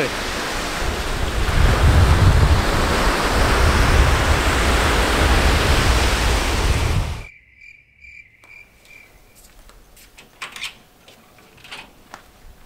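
Surf washing on a beach, heard as a loud, steady rushing noise with a deep rumble and wind buffeting the microphone. About seven seconds in it cuts off abruptly to quiet, where a run of five short high pips and a few faint clicks follow.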